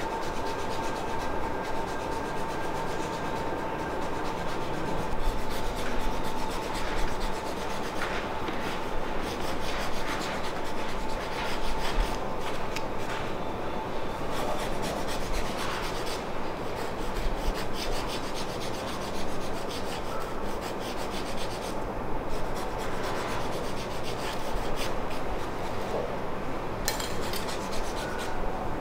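Hands rubbing over the body close to the microphone during a massage: a continuous scratchy rubbing. A faint steady tone sits underneath.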